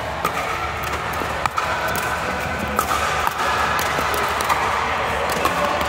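Pickleball paddles striking the ball: sharp pops at irregular intervals, several in a few seconds, over a steady background hubbub.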